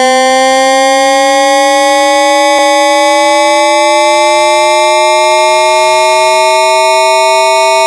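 AM radio sound effect: a loud, buzzy tone rich in overtones, slowly rising in pitch like a receiver's whistle drifting as the dial is tuned, with a faint click about two and a half seconds in.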